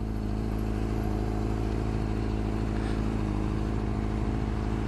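Honda CBR600RR inline-four engine running steadily at an even engine speed, with no revving.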